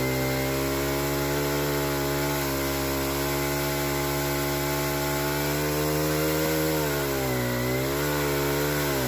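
Small pole chainsaw motor running as it cuts into a tree. Its pitch holds steady, then sags twice near the end as the cut loads it: the small saw is struggling with a job too big for it.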